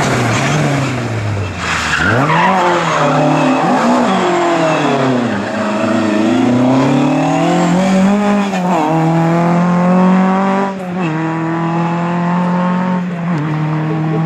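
Ford Escort Mk2 rally car's engine revving hard as it drives past. The pitch falls and climbs several times as it brakes and accelerates through the gears, with sharp breaks at each gear change, then holds high revs almost steady in the last few seconds.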